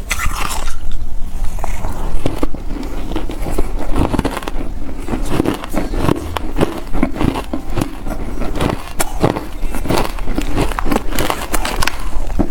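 Close-miked crunching of reshaped, powdery shaved ice being bitten and chewed, with many irregular crunches a second throughout.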